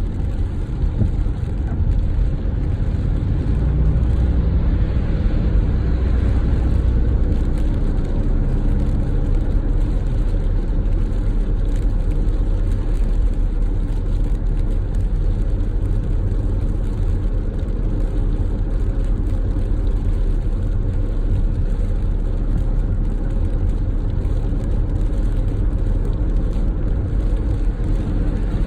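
Car driving along a road: steady low rumble of engine and tyres, with a deeper hum that swells for a few seconds a little way in.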